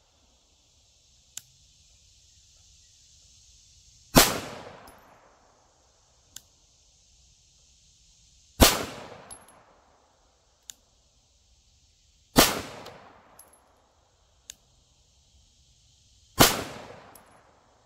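Four single 9mm shots from a Glock 17 clone pistol fired slowly from a bench rest, about four seconds apart, each trailing off in a short echo. Faint sharp ticks fall between the shots.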